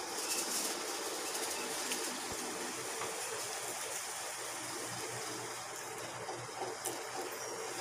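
Steady rushing background noise with a faint low hum underneath.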